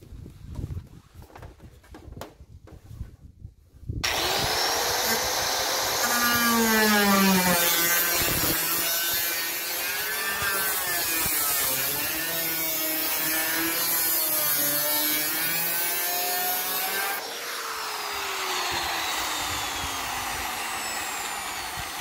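Makita circular saw with a 115 mm by 1 mm abrasive cutting disc starting up about four seconds in and cutting through the van's sheet-metal roof. The motor's pitch dips and recovers as the disc bites, and the cut goes through easily, 'like butter'. Near the end the motor's whine falls steadily as it winds down.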